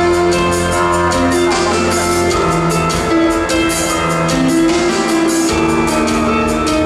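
Instrumental music with a drum beat and sustained melodic notes, played loud over the hall's sound system.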